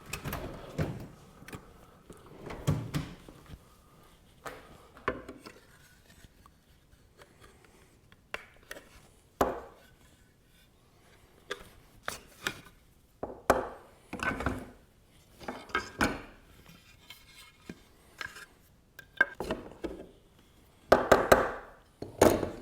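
Nails being pulled from the wooden stretchers of a glued-up bow rocker: irregular knocks, taps and scrapes of a hand tool against wood, with a quick run of knocks near the end.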